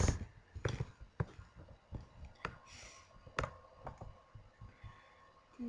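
Scattered sharp clicks and light taps close to the microphone, about half a dozen spread out irregularly, with a soft breathy rush about three seconds in.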